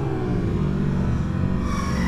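Dirt bike engines running steadily on a trail ride, the rider's own bike close to the mic and a second bike passing close by.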